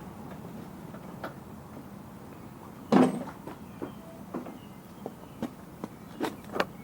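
A few knocks and clicks of tools and parts being handled, with one sharper knock about three seconds in and lighter ones after it, over a faint steady hum.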